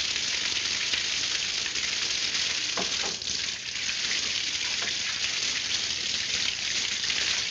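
Water spraying from a burst pipe: a steady hiss of gushing water.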